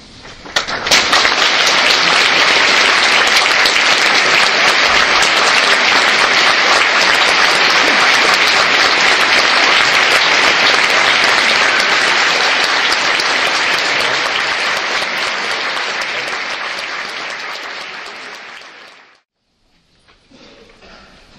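Concert audience applauding. The clapping starts suddenly about half a second in, stays loud and steady, tapers off, and cuts off abruptly near the end.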